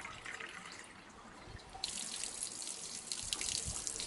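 Running spring water splashing as a cup is rinsed in the flow. The splashing turns louder and brighter about two seconds in, with many small splashes.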